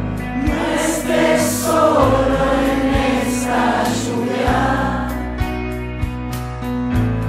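Background music: a choir singing over a steady bass line and a regular beat.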